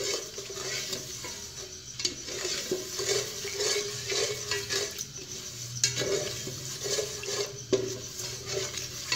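A spoon stirring and scraping around the bottom of an aluminium pot of sugar melting in hot oil, kept going without a break until the sugar changes colour. A few sharp knocks of the spoon against the pot come about 2, 6 and 8 seconds in.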